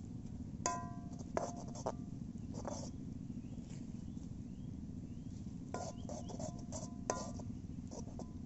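Light clinks and taps of metal cookware and utensils, a few in quick succession about a second in and again near the end, some ringing briefly, over a steady low rumbling hiss.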